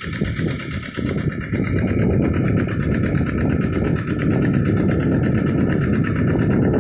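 Small engine of an irrigation water pump running steadily with a fast, even beat.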